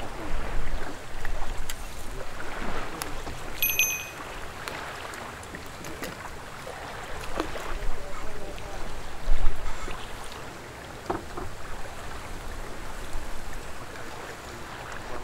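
Water lapping and wind around a moored fishing boat, with a few light knocks. A short high chirp comes about four seconds in.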